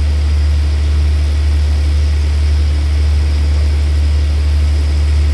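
Diesel engine of a standing passenger train idling, a steady low hum that does not change.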